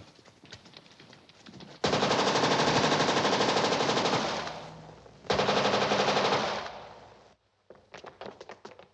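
Machine gun firing two long bursts, the first about two and a half seconds long, the second shorter, each tailing off; light clicks and knocks before and after.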